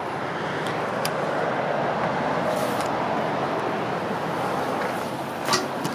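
Steady road-traffic noise that swells and eases off like a vehicle going by, with a light click about a second in and a knock near the end.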